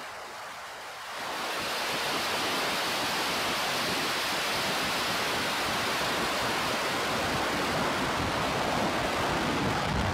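The Starship prototype's three Raptor rocket engines thundering as it climbs after liftoff: a steady, rushing, noise-like sound. It is quieter for about the first second, then rises and holds.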